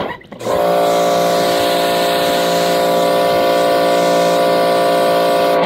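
Greenworks 1700 PSI electric pressure washer motor kicking on about half a second in, humming steadily for about five seconds, then cutting off abruptly. The motor is short-cycling, switching on and off by itself, which the owner guesses is a faulty pressure switch.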